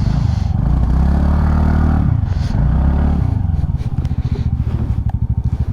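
Motorcycle engine revved up twice under throttle, then easing off to a steady, quieter pulsing idle near the end.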